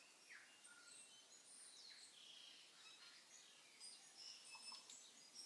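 Faint birdsong: many short chirps and whistles from several birds, over a soft background hiss.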